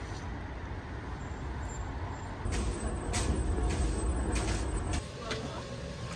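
Fire burning inside a clay tandoor oven: a steady low rumble with a few sharp crackles in the middle, dropping away abruptly about five seconds in.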